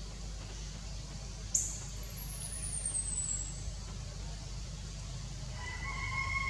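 Outdoor background with a steady low rumble. About a second and a half in, a sudden thin, high whistle slides downward for about two seconds, and near the end a faint bird call holds one pitch.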